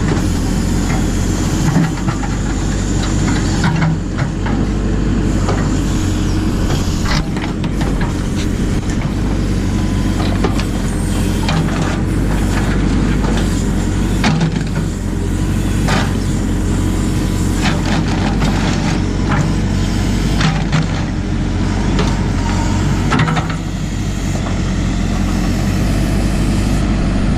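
JCB 4CX backhoe loader's diesel engine running steadily, with scattered knocks and clatters throughout.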